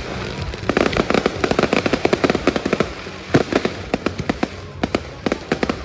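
Fireworks going off in a rapid, irregular run of sharp cracks and pops, densest in the first half and thinning to scattered bangs later.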